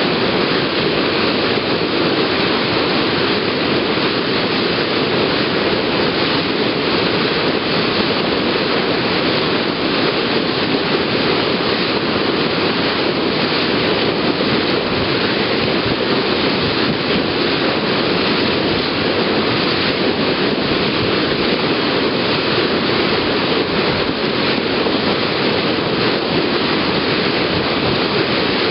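Bow wave of a moving passenger ferry, a steady loud rush of churning, spraying water breaking along the hull.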